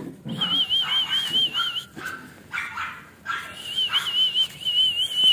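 Pug puppies whimpering and yipping, with a high warbling whistle that wavers quickly up and down in two long stretches.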